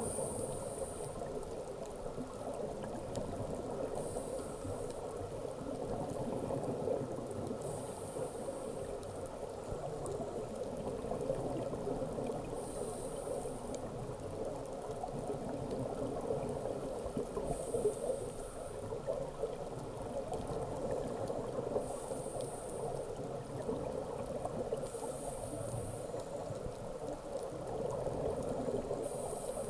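Scuba diver breathing through a regulator underwater: a short high hiss on each breath, recurring about every four to five seconds, over a steady low bubbling water noise.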